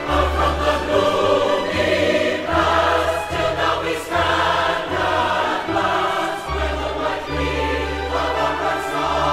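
Music: a choir singing over instrumental accompaniment, with held bass notes that change every second or so.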